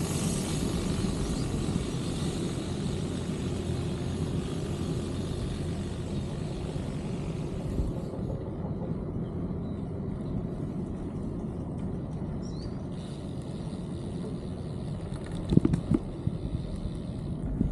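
Steady low outdoor rumble, with a high hiss over roughly the first half that then fades, and a few short knocks about two seconds before the end.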